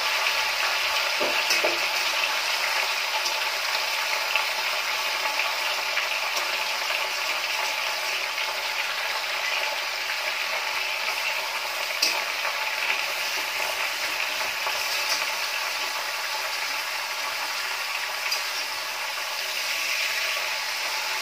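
Chicken pieces sizzling steadily in hot oil in a metal kadai as they start to fry lightly, with a few sharp clinks of a metal spatula against the pan as they are stirred.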